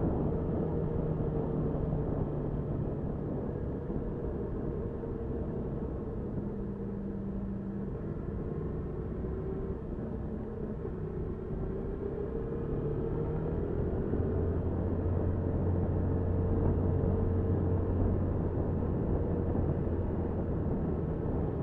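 Motorcycle engine running under way, with steady road and wind rumble. The engine note shifts in pitch several times and grows louder in the second half.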